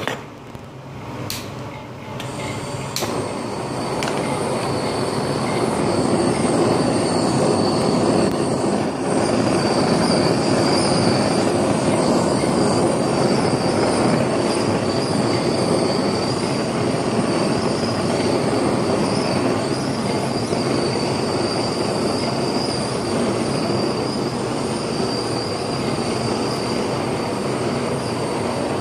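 Handheld butane blowtorch burning with a steady hiss and a high whistle, caramelizing the sugar on crème brûlée. It starts with two sharp clicks and grows louder over the first few seconds.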